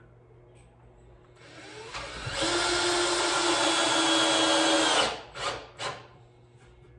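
Cordless drill running into wood. The motor spins up over about a second, runs steadily with a whine for about three seconds, then stops, followed by two short bursts.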